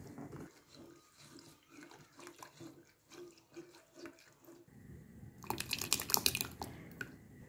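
Silicone whisk stirring milk in a nonstick pot, soft strokes about three times a second. Then, about five and a half seconds in, a second or so of loud wet splashing as yogurt is poured into the milk.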